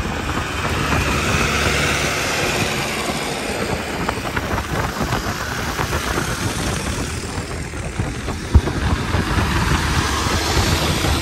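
A vehicle engine running steadily, with one sharp knock about eight and a half seconds in.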